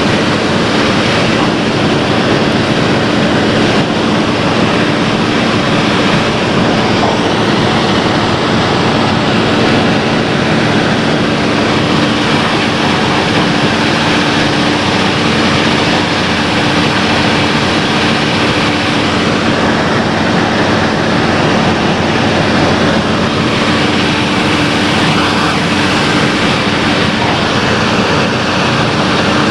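Excavator's diesel engine running steadily under load, heard up close, with a steady droning hum throughout.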